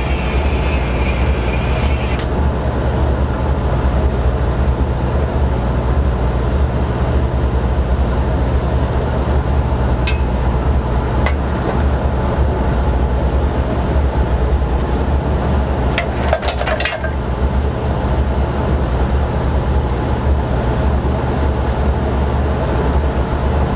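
Steady low machine hum with occasional metal clinks of hand tools working on forklift lift-chain anchors, including a short cluster of clinks about two-thirds of the way through. A thin high whine stops about two seconds in.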